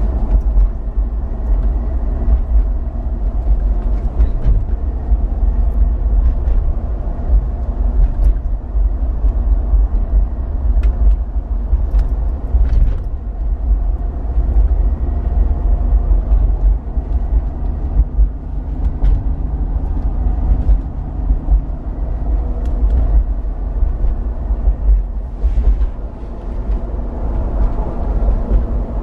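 Inside the cabin of an Ineos Grenadier on the move: deep road and tyre rumble with the hum of its 3.0-litre BMW B58 straight-six petrol engine running, and a few light clicks from the cabin.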